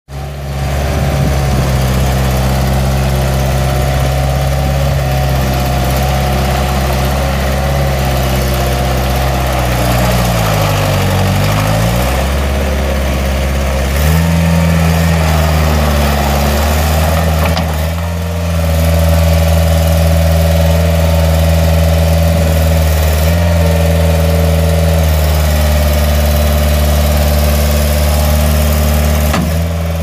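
Bobcat S150 skid steer's Kubota V2403 four-cylinder diesel engine running. Its engine speed dips and recovers about ten seconds in, rises at about fourteen seconds, sags briefly near eighteen seconds, then holds steady.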